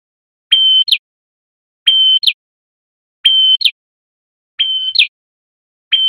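Male red-headed prenjak singing in full song: a loud phrase repeated about every one and a half seconds, each phrase a held high whistle that ends in a quick slurred note. Four phrases are heard, and a fifth starts right at the end.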